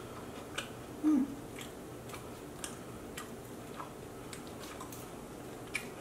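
Faint scattered clicks and crinkles of a small plastic Taco Bell sauce packet being torn open and squeezed onto a pizza slice, with chewing. About a second in, a brief low hum from one of the eaters is the loudest sound.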